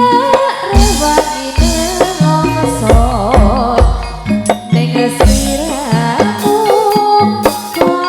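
Live Javanese campursari music: a wavering sung melody over drums and deep, repeated bass notes.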